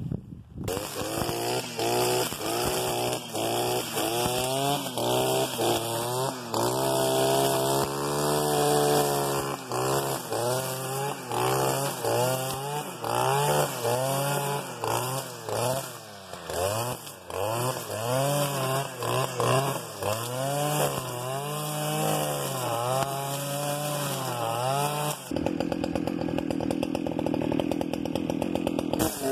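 Stihl FS 490 C-EM brushcutter's two-stroke engine, its revs rising and falling over and over as the 3.0 mm trimmer line cuts tall grass. Near the end the engine holds a steady lower speed for a few seconds, then revs up again.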